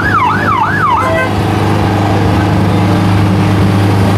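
Emergency-vehicle siren in a fast yelp, sweeping up and down about two to three times a second, then cutting off about a second in. A steady low engine hum continues underneath.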